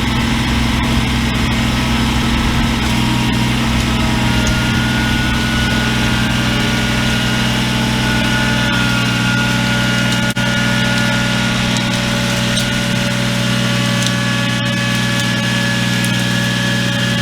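Black Max 38cc two-stroke chainsaw engine idling steadily at an even pitch.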